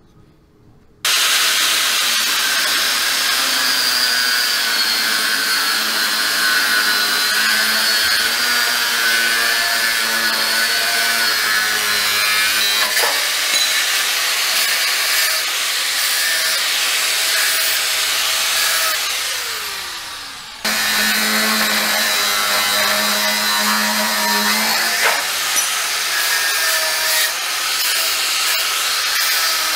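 Electric angle grinder grinding into a steel piece clamped in a vise: a steady motor whine with the rasp of the abrasive disc on metal. It starts about a second in, fades briefly about two-thirds of the way through, then cuts back in.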